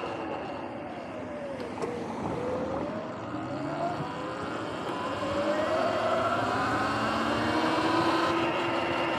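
Whine of a Sur-Ron Light Bee electric dirt bike's motor and drivetrain, falling in pitch as the bike slows almost to a stop about two seconds in, then rising as it accelerates away, over tyre and wind noise.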